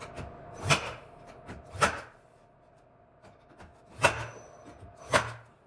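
Four sharp knocks in two pairs, each pair about a second apart, over a faint steady hum.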